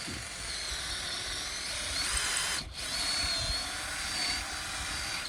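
Power drill running into a fence post, boring a pilot hole for an electric-fence insulator, with a steady motor whine. It stops for a moment about two and a half seconds in, then runs on.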